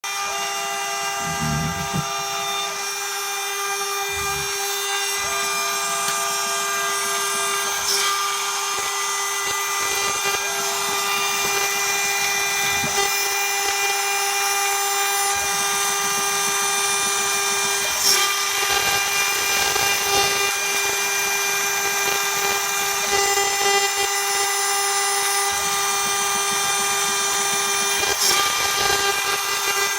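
Homemade CNC router's spindle running with a steady, high whine of several stacked tones while the cutter mills aluminium, with the rough hiss of cutting underneath and a few sharp ticks.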